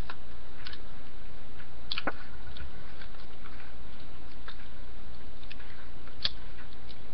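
A few sharp clicks and taps, clearest about two seconds in and again about six seconds in, from the parts of a tactical rail kit being handled and screwed onto a Tippmann A5 paintball marker, over a steady low hum.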